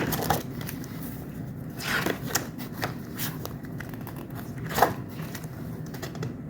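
Paper merchandise (sticker sheets and booklets) being handled and leafed through: irregular rustles and light clicks, the sharpest about two seconds in and near five seconds in, over a low room hum.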